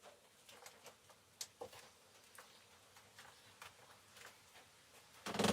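Scattered faint ticks and taps of potting soil and plastic seed containers being handled while soil is added over sown seeds, with one louder brief rustling knock near the end.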